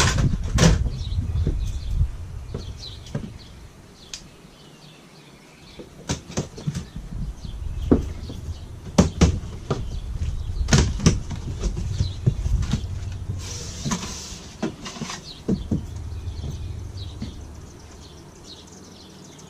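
Cardboard shipping box being cut open and handled: irregular knocks, clicks and scraping of cardboard, with a brief tearing or slicing rasp about two thirds of the way through.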